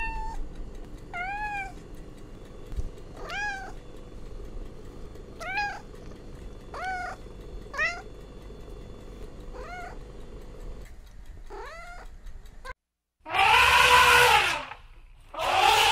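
Tabby domestic cat meowing, about eight short meows that rise and fall in pitch, one every second or two. Then an African elephant gives two much louder trumpeting calls.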